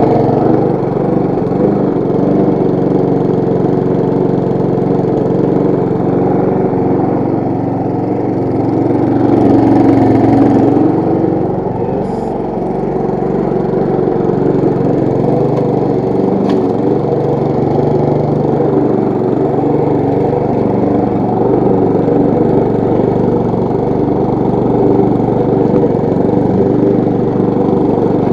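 Briggs & Stratton petrol engine of a push lawn mower running steadily as the mower is pushed along, briefly louder about ten seconds in.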